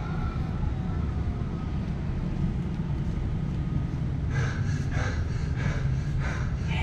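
Steady low rumble of background noise. About four seconds in it is joined by a rhythmic run of brighter pulses, the start of music.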